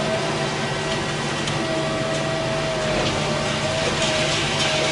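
A tracked demolition excavator running steadily, its engine hum carrying a thin, slightly wavering whine.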